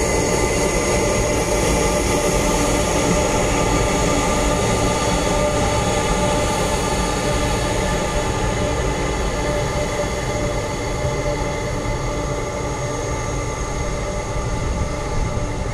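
Jet airliner engines running at low taxi power: a steady rumble with several high, steady whines, easing slightly about halfway through.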